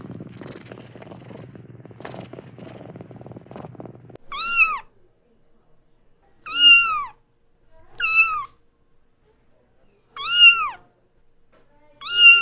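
A domestic cat purring in a low, rough rumble for about four seconds, then meowing four times, each meow a short call that rises and falls in pitch, with a fifth meow starting at the very end.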